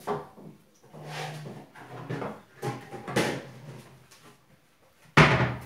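Faint, muffled voice-like sounds, then a sudden loud knock near the end.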